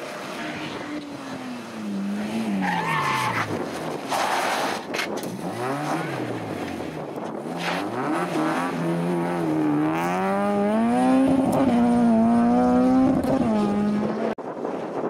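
Hillclimb race car engines: the revs fall away as a car brakes and changes down into a bend, with a short tyre squeal. A second car's engine then revs up hard and holds high revs as it accelerates away, cutting off suddenly near the end.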